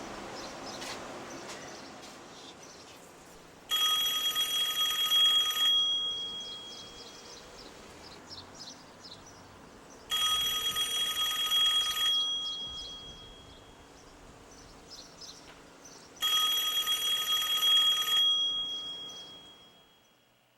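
A payphone's bell ringing three times, each ring about two seconds long with about four seconds of quiet between, the bell ringing on briefly after each.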